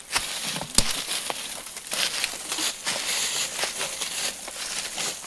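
Footsteps crunching through dry grass and leaves: a continuous rustling crackle, with one sharper crack under a second in.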